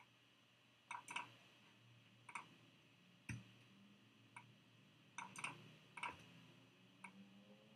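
Faint, irregular clicks of a computer mouse, a few in quick pairs or clusters, over a faint low steady hum.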